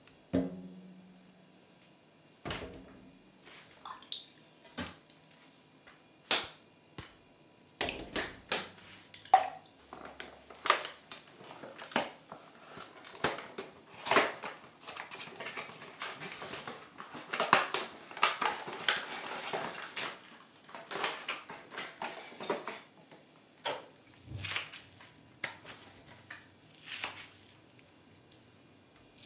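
Handling of plastic bath toys and their cardboard packaging over a stainless steel tray of gooey slime water: a string of sharp clicks and knocks, with a stretch of denser rustling about halfway through.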